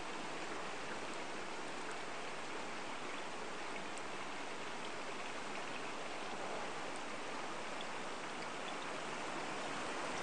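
Small woodland stream flowing, a steady even rush of water.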